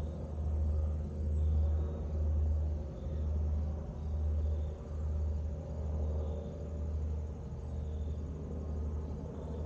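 Distant low rumble of a US Air Force Boeing C-17A Globemaster III's four turbofan engines as it climbs away after takeoff. The rumble swells and fades about once a second.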